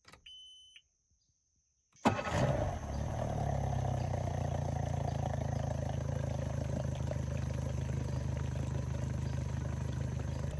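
A short high beep from the outboard's ignition as the key is turned on, then the outboard motor starts about two seconds in with a loud burst and settles into steady running.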